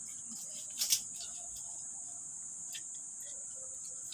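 Steady high-pitched drone of insects, with one sharp click about a second in.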